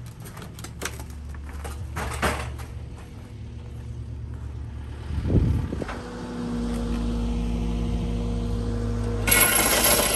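Excavator diesel engine running steadily with a few knocks. About nine seconds in, a loud harsh noise starts up as the excavator's hammer begins driving the rod that sets a manta ray earth anchor.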